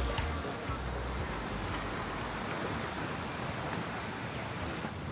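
Steady outdoor ambience of wind and water: an even, featureless rush with no distinct events.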